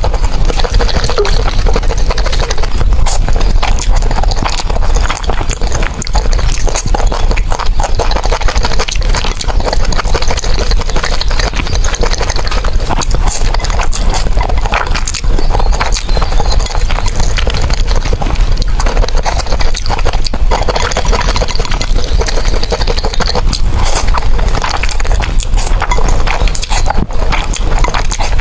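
Loud, close-up eating sounds, chewing and mouth noises with many sharp clicks and crunches.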